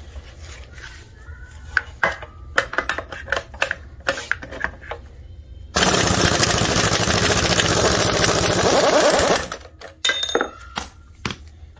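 Pneumatic impact wrench hammering for about three and a half seconds on the bolt of the drive gear of a MaxxForce 13 high-pressure fuel pump, driven by air at about 180 PSI. Before it come a few sharp metal clanks as the socket and tool are set on the bolt, and a few more clinks after it stops.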